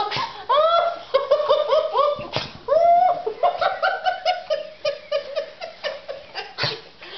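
Dogs whining and yelping in excitement as they greet their owner, a quick run of short cries that rise and fall in pitch.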